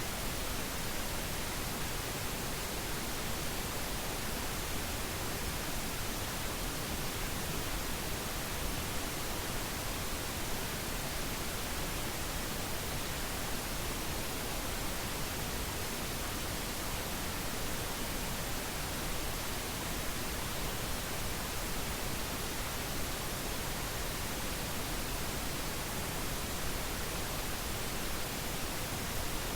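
Pink noise test signal: a steady, even hiss spread across the whole range, with its level falling by 3 dB per octave so it sounds deeper and softer than white noise, including low rumble.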